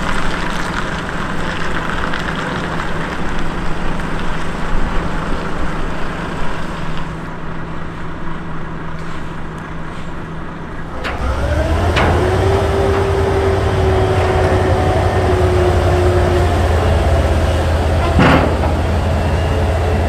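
Heavy Volvo FM truck's diesel engine running while hauling a yacht on a low-loader trailer. About halfway the engine drone grows deeper and louder, with a steady whine for a few seconds.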